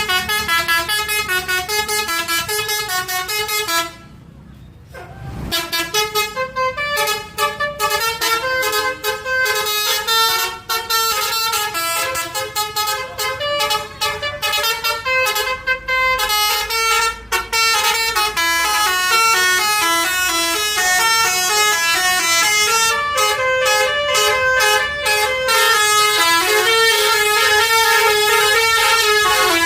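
Telolet basuri bus horn, a set of multi-trumpet air horns, playing a melody of quick stepping notes. There is a short break about four seconds in.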